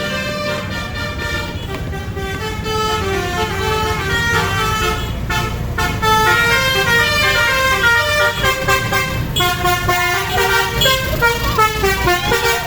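Basuri 'telolet' multi-tone bus horn playing a tune of quick stepped notes over the low rumble of the bus engine. About ten seconds in, swooping tones that rise and fall join the horn.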